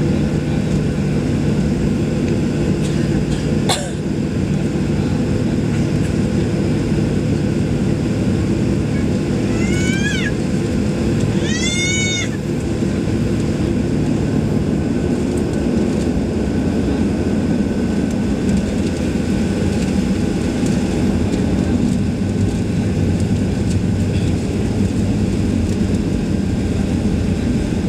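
Steady engine noise inside the cabin of a Boeing 737-800 taxiing, its CFM56-7B jet engines at low taxi power, with a low hum that shifts about halfway through. A sharp click comes about four seconds in, and two short high squeals with a rise and fall in pitch come about ten and twelve seconds in.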